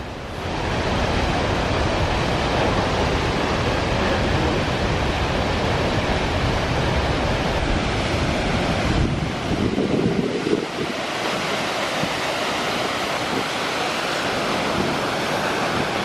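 Steady rush of a tall waterfall plunging into its pool, with wind and spray buffeting the microphone. The low wind rumble eases about ten seconds in.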